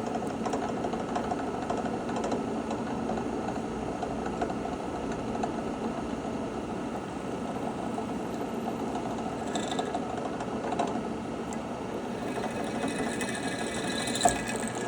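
Drill press running steadily while drilling a hole, with brief higher-pitched sounds about ten seconds in and again near the end.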